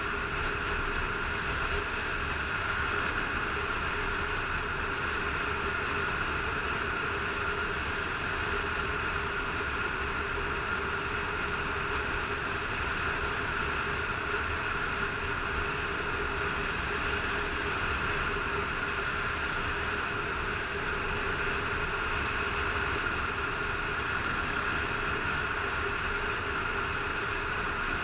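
Motorcycle cruising at steady speed: the engine drones at a constant pitch under a steady rush of wind buffeting the helmet-mounted camera's microphone.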